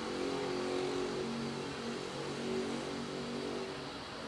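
A motor vehicle's engine running, its hum shifting slightly in pitch over steady street noise and fading near the end.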